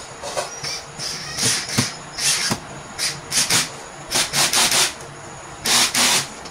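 Screwdriver driving a screw into a particleboard cabinet panel: a run of short scraping rasps at uneven intervals, the loudest pair near the end.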